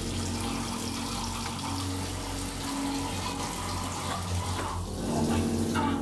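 Kitchen faucet running, a steady stream of water splashing into the sink.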